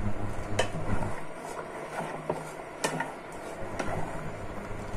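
Plastic spoon stirring thick milk vermicelli in a stainless steel saucepan, with scattered clicks as the spoon knocks the side of the pan. Under it runs a low electrical hum from the induction cooktop, which cuts out about a second in.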